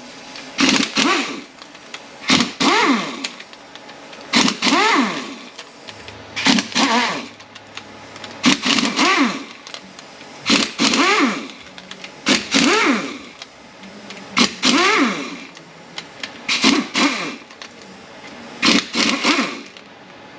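Handheld power driver spinning out T30 Torx bolts from a 948TE transmission: short trigger pulls about every two seconds, about ten in all, each a motor whine that rises and falls in pitch.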